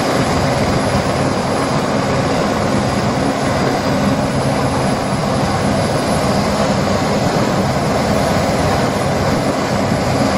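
Helicopter running steadily, its engine and rotor making a loud, continuous noise with a low, even hum beneath it.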